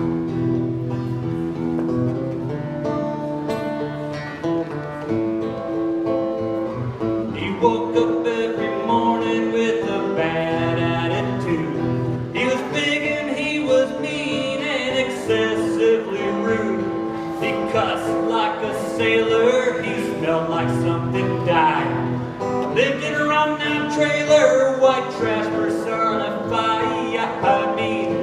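Acoustic guitar strummed in steady chords, joined about seven seconds in by a man singing.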